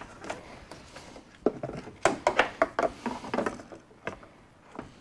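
Hard plastic clicking and knocking from a Chevrolet Silverado headlight assembly being handled, with a quick run of sharp clicks through the middle.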